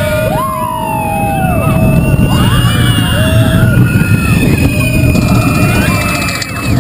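Riders screaming and whooping on a small roller coaster, several voices holding long high cries and sliding down in pitch over a steady low rumble.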